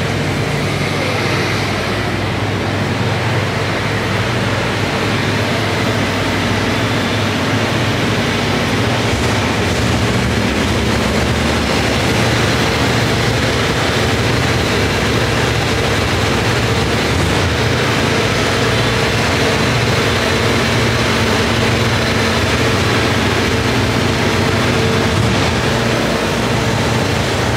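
Steady drone of running machinery, with a low hum and a faint, steady higher tone over a constant wash of noise.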